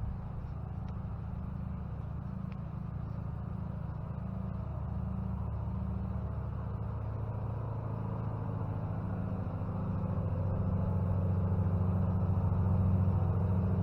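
A steady low engine hum, slowly getting louder.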